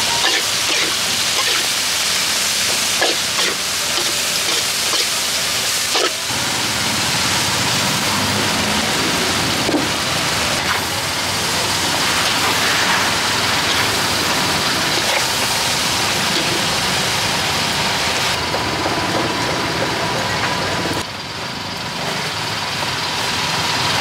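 Fried vermicelli with shredded cabbage and green onion sizzling in a large steel wok as it is stir-fried, a steady hiss with a few sharp taps of utensils against the wok in the first half.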